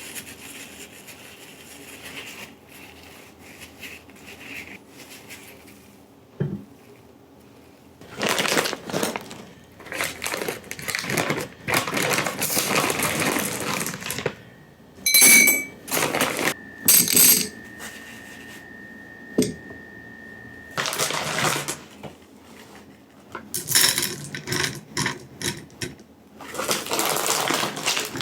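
Kitchen handling sounds: irregular rustling, crunching and clattering of dishes and utensils, with sharp clicks near the middle and a steady thin tone lasting a few seconds.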